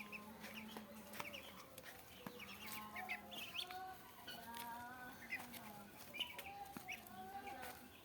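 A flock of chickens clucking, with many short overlapping calls and higher chirps mixed in, over a faint low steady hum.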